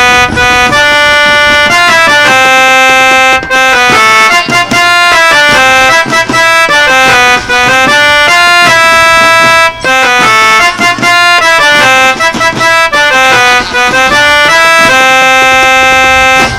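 Loud instrumental music: a melody of held and quick notes over a lower line. It cuts off suddenly at the end.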